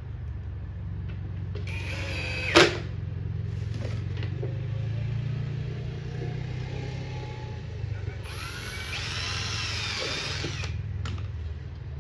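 Power drill running in two bursts, working on the sign's metal letters: a short run about two seconds in that ends in one loud sharp crack, and a longer run of about two and a half seconds near the end, its whine rising as the motor spins up. A steady low hum lies underneath.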